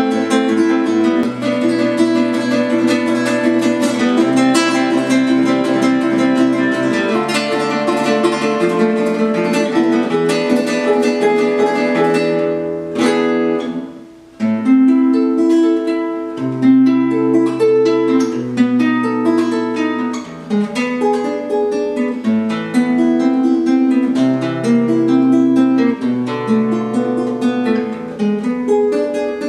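Cordoba Iberia series nylon-string classical guitar played solo: a steady stream of fingerpicked notes over a moving bass line. After a strummed chord about thirteen seconds in, the sound dies away to a brief pause, then the playing picks up again.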